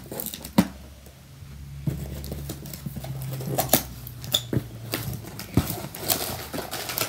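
Cardboard packaging insert being handled and worked at with fingers and a pocket knife: scattered clicks, taps and scrapes, over a low steady hum.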